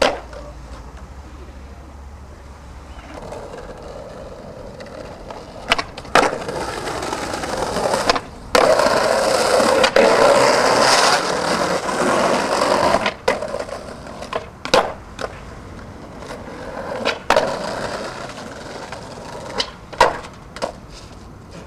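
Skateboard wheels rolling over concrete, with sharp clacks of the board popping, hitting and landing several times. The rolling is loudest and grittiest in the middle, then it settles back.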